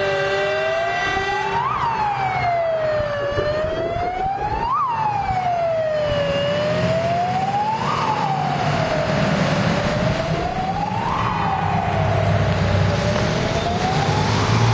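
Fire engine siren wailing, sliding up and down in pitch about once every three seconds. An air horn blares with it for the first second and a half. Truck engine noise grows near the end as the vehicles pass.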